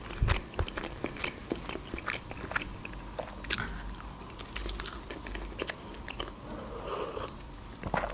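A person chewing crunchy fried fast food with her mouth closed: a steady run of small crunches and mouth clicks.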